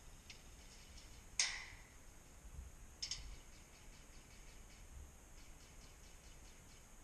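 A sharp snap about a second and a half in, a cluster of clicks near three seconds, and then a run of faint, quick ticks, over a low background hiss.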